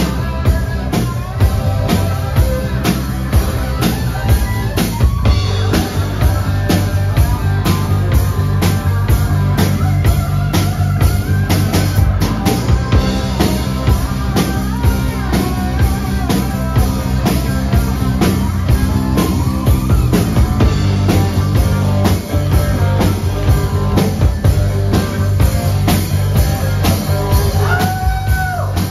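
Live rock band playing: electric guitar, electric bass and drum kit, with a steady drum beat.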